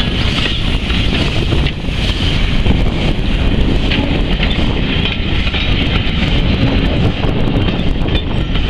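Steam-hauled passenger train passing close by: the locomotive pulls away while the coaches roll past on the rails with a steady rumble. Wind noise on the microphone.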